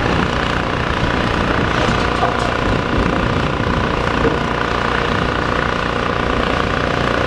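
Steady diesel engine noise of a demolition excavator working, a constant drone with no pauses.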